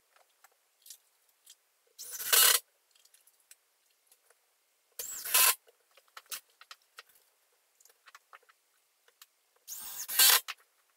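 Cordless drill driving trim screws through a door jamb in three short bursts of about half a second each, with small clicks of handling between them.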